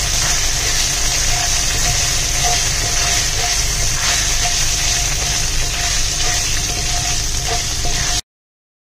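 Whole spices (bay leaf, cinnamon, cardamom, cloves and fennel seeds) sizzling steadily in hot coconut oil in a nonstick wok while being stirred with a spatula, as they roast on low flame. The sound cuts off abruptly near the end.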